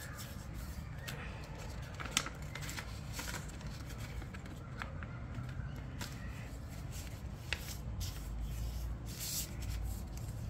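Paper being folded and creased by hand: scattered rustling and crinkling with short sharp crackles as the folds are pressed, the sharpest about 2 seconds in.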